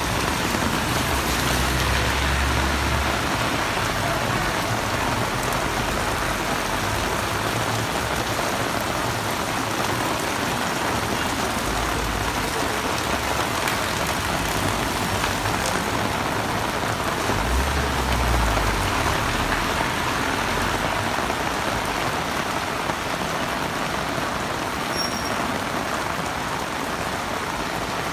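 Heavy rain pouring down in a steady, even hiss. Two brief low rumbles sound under it, about one to three seconds in and again around eighteen seconds in.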